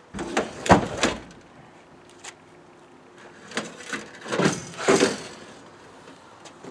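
Knocks and thuds of a car's front seat being worked loose and pulled out: a heavy thump under a second in, a few single knocks, then another burst of bumping around four to five seconds in.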